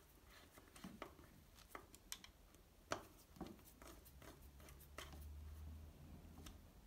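Faint, scattered clicks and taps of a T-handle hex key turning a long screw into a tablet holder bracket, with a faint low hum in the second half.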